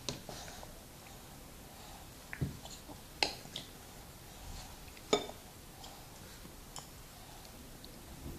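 Scattered light clicks and taps of chopsticks and a fork against ceramic bowls, a handful in all with the sharpest a little past halfway.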